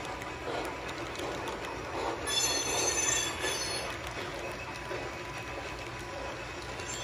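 HO scale model freight train rolling on hand-laid track. A brief high squeal comes about two seconds in and lasts about a second.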